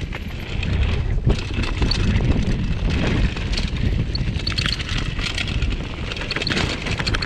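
2014 Giant Glory downhill mountain bike rolling fast down a dirt and gravel trail: a steady wind rumble on the microphone, with tyre noise and a constant clatter of small knocks and rattles from the bike over rough ground.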